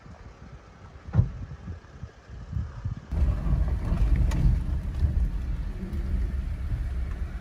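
Wind buffeting the microphone in gusts, with a sharp knock about a second in. From about three seconds in, the steady low rumble of a Jeep driving over a concrete low-water bridge, heard from inside the vehicle.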